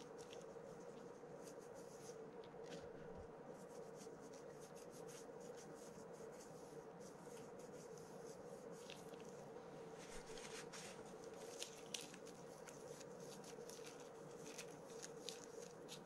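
Faint rustling and light ticks of fingers working grease over a carbon-fibre reel drag washer, heard over a steady faint hum.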